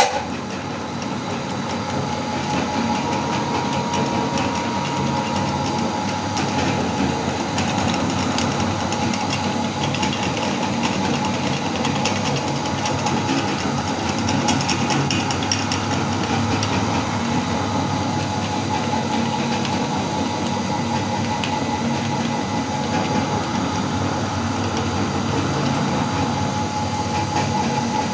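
Electric meat grinder switched on and running steadily with a constant motor whine and hum, grinding jelly candy with a light crackle.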